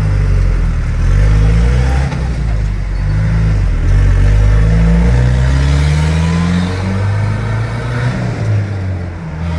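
Four-cylinder pickup engine heard from inside the cab, accelerating hard through the gears of a manual gearbox: the engine note climbs, drops back at each of several upshifts and climbs again, then settles to a steadier cruise near the end.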